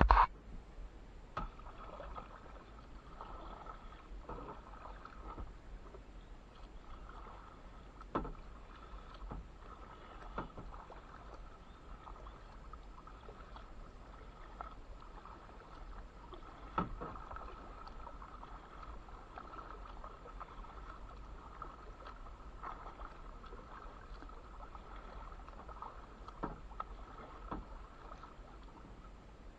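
Kayak paddle strokes on calm water: quiet dips and drips of the paddle blades, with scattered small knocks and splashes, the sharpest about 8 and 17 seconds in, over a faint steady hiss.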